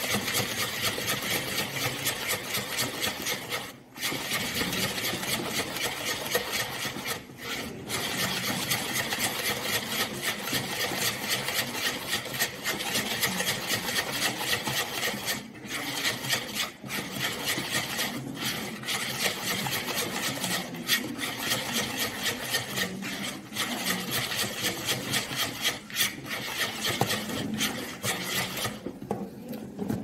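Hand whisk beating an egg, sugar and margarine mixture in a bowl: fast, steady, rhythmic scraping strokes, broken by brief pauses a few times and stopping just before the end.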